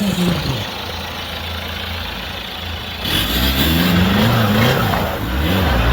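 Off-road 4x4's engine running steadily, then about three seconds in getting louder and revving up and down several times.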